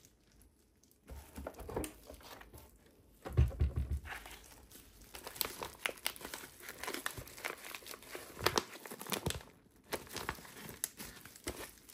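Embossed plastic vacuum-sealer bag crinkling as gloved hands pick it up and flex it. The crackling starts about a second in, with a louder rustle partway through, then runs on as irregular crackles.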